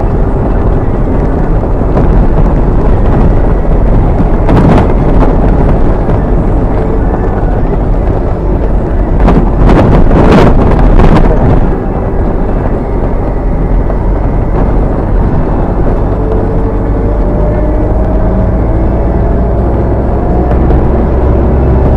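Car driving over a badly potholed road, heard from inside: a loud steady rumble of tyres and engine, with a couple of seconds of louder rough noise about halfway through.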